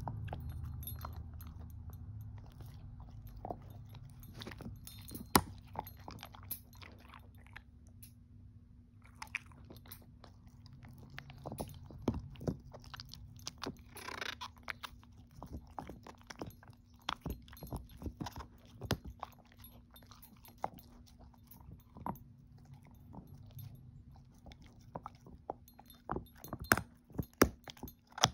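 A shepherd-mix dog gnawing a hard, long-lasting chew treat with her back teeth: irregular crunches and clicks of teeth on the chew. A few sharper cracks come about five seconds in, around twelve seconds and near the end.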